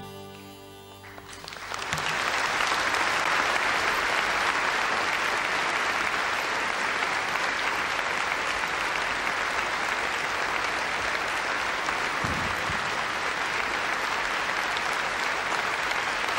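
The song's last harmonica notes die away, and about a second and a half in a concert audience breaks into steady, loud applause that continues.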